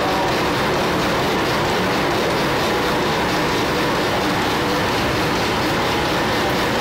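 Vintage Mirrlees diesel engine running steadily, with a fast, even clatter.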